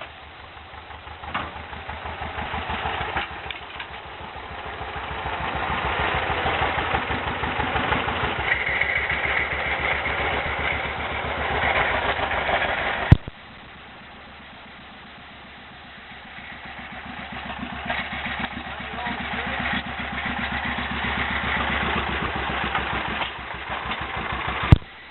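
An engine idling steadily. Twice a louder, clattering mechanical running sound builds up over several seconds, then cuts off abruptly with a sharp click.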